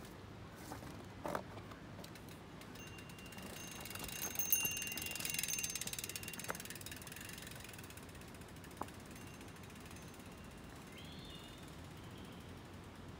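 Mountain bike's rear freehub ratcheting in a rapid run of fine clicks as the wheel rolls without pedalling. It swells about four seconds in and fades out a few seconds later.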